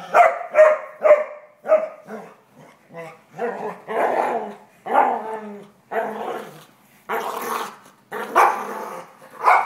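A dog barking and growling while play-fighting: four quick barks about half a second apart, then a run of longer, rougher barks and growls about once a second.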